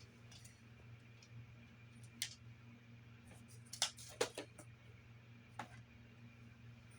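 A few faint, sharp clicks and taps of small hard objects being handled: one about two seconds in, a quick cluster around four seconds, and one more later. A low steady hum runs underneath.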